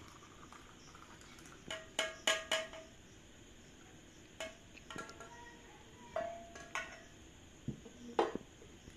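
Kitchenware clinking against a glass as hot milk is transferred from the pan into the glass: a handful of sharp clinks in small groups, each ringing briefly.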